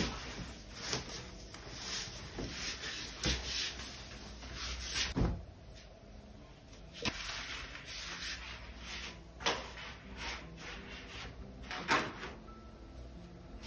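Clothing rustling and rubbing as a person gets dressed, pulling on leggings and a top, with scattered soft knocks.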